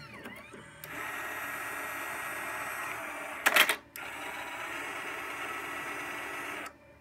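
Fifth Generation Systems Jukebox Five floppy disk changer running its motor mechanism, a steady whir with one loud clack about halfway through, then stopping shortly before the end.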